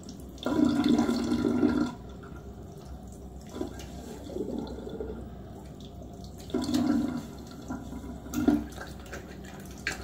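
Water splashing at a bathroom sink as wet hands rinse shaving lather off the face between razor passes. The splashing comes in several bursts: a longer one about half a second in, then shorter ones around four, six and a half and eight and a half seconds.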